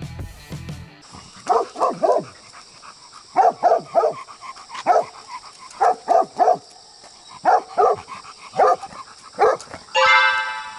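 A dog barking repeatedly in short groups of two or three barks, then a drawn-out whine near the end.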